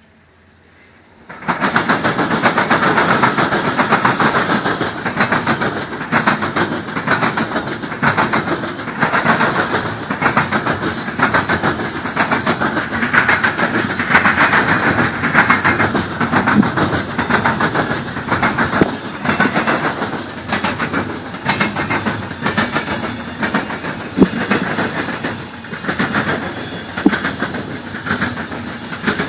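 CSX freight train rolling past close by, its wheels clacking over rail joints in a steady rapid clatter. It starts suddenly about a second and a half in.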